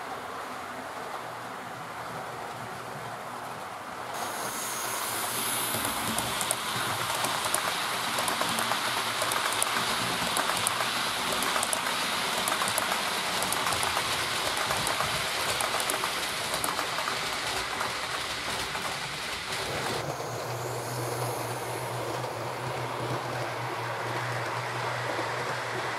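Model passenger train rolling along the layout track: a steady rushing rattle of wheels on rail. It gets louder and fills with fine rapid clicks from about four seconds in as the coaches pass close by, then turns softer with a low hum from about twenty seconds in.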